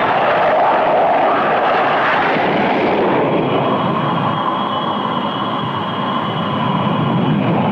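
Jet aircraft engines running: a steady loud rush, heaviest for the first three seconds or so, after which a steady high whine stands out.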